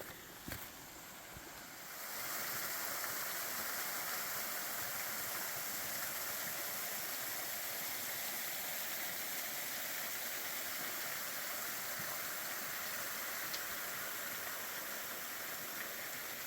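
Small waterfall running low, a thin flow of water splashing steadily over a rock ledge. The splashing comes in about two seconds in, after a few light clicks.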